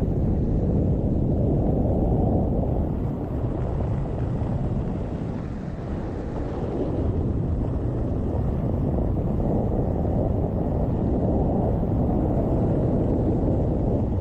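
Wind buffeting an action camera's microphone on a fast run down a ski slope at about 55–66 km/h: a steady, loud low rumble that eases slightly about six seconds in.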